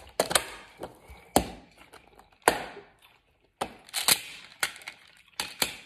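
Hard toy pieces being knocked and set down on one another, a string of about ten sharp, irregularly spaced clacks.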